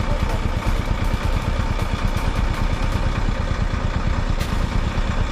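Motorcycle engine running steadily, a dense low rumble.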